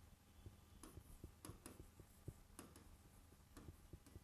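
Faint, irregular ticks and taps of a stylus on an interactive touchscreen board as handwriting is written on it, otherwise near silence.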